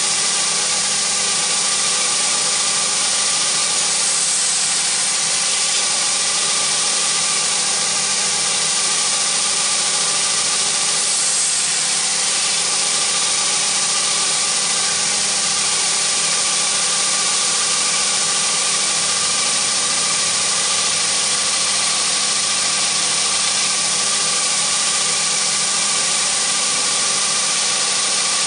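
Belt grinder running steadily: a constant motor hum under a loud, even hiss.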